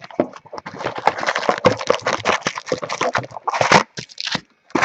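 Trading-card packaging being torn open, a fast run of crinkling and crackling.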